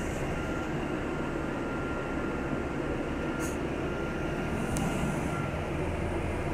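Steady engine and road rumble heard from inside a double-decker bus as it drives, with a faint thin steady whine that stops about five seconds in and two brief clicks midway.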